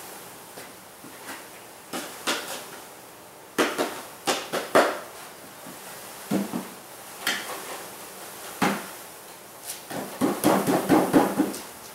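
Wooden bee package being knocked and shaken over an open hive to dump the bees in: irregular sharp wooden knocks, with a rapid run of them near the end.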